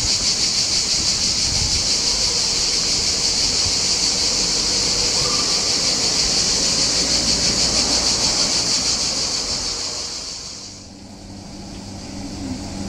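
A steady, high-pitched shrill buzz with a fast flutter, stopping suddenly about ten and a half seconds in. Then the low hum of an approaching BB 27000 electric locomotive hauling an intermodal freight train, growing louder.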